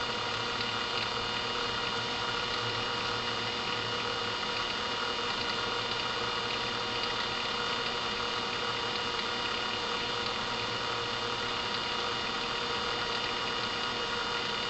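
Steady background hum and hiss with several faint, steady whining tones, unchanging in level.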